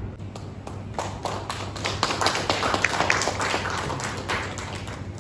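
A small audience clapping. It builds about a second in, is fullest in the middle, and tapers off near the end.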